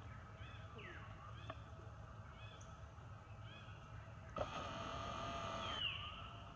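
Newborn macaque squealing: short, high calls that slide downward in pitch, then a longer, steadier cry about four seconds in that lasts over a second and ends in another downward squeal.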